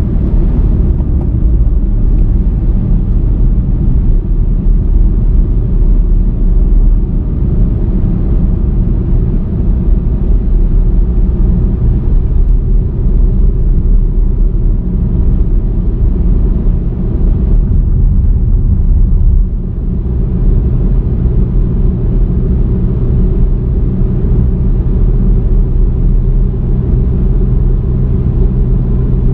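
A car driving along a road, heard from on board: a steady low rumble of engine and tyres, easing briefly about two-thirds through.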